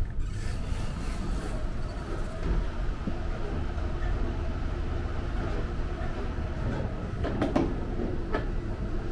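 Steady low rumble and rush of a Tokaido Shinkansen train running at speed, heard from inside the vestibule. A few short knocks and clicks sound near the end.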